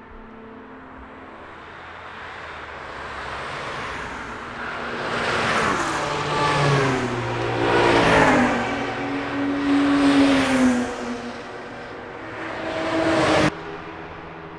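A string of cars going past one after another with engines running hard, each engine note falling in pitch as the car goes by. The sound cuts off suddenly near the end.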